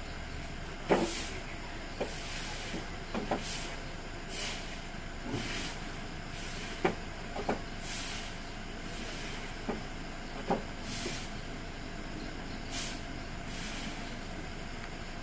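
Broom sweeping dry fallen leaves on concrete into a dustpan: a short swish every second or two, with scattered sharp knocks and taps, the loudest about a second in.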